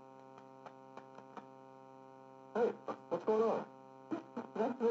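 Steady electrical hum, an even stack of tones, in the TRS-80 Model I's low-fidelity digitised sound playback, with a few faint clicks in the first second and a half. Muffled, band-limited speech from the old film's soundtrack comes in about two and a half seconds in and again near the end.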